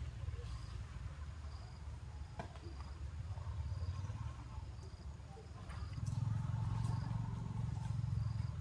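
Insect chirping outdoors: a short high note repeating about once a second, over a steady low rumble. The rumble grows louder about six seconds in, with a run of quick faint ticks.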